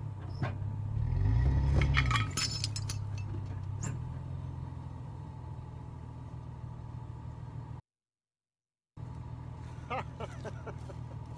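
Ute engine idling, revving up and back down once about a second in, with a few sharp metallic clinks around two seconds in from the chain hitched to the star picket. The sound cuts out for about a second near the end.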